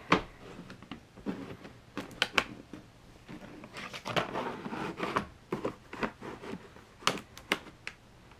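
Plastic Scalextric track pieces and their clip-on borders being handled and fitted together on a wooden tabletop: scattered clicks and clatters, with some sliding and rubbing of plastic in the middle.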